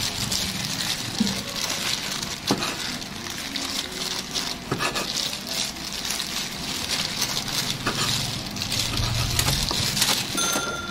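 Large cleaver-style kitchen knife slicing cooked beef on a wooden chopping board, the blade knocking on the board with each cut in an uneven series of taps. A short electronic beep near the end.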